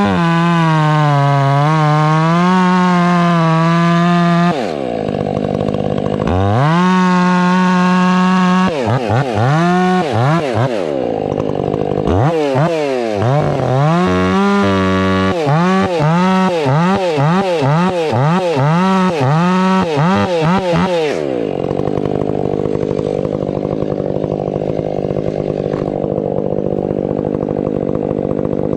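Stihl 500i fuel-injected two-stroke chainsaw cutting firewood at full throttle, its pitch sagging and recovering under load in the cut. In the middle it is throttled up and down about once a second, then it drops to a steady idle for the last several seconds.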